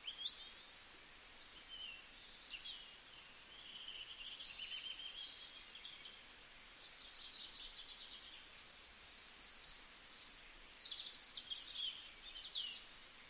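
Small birds chirping and calling, with short rising and falling notes and a quick trill, over a faint steady hiss.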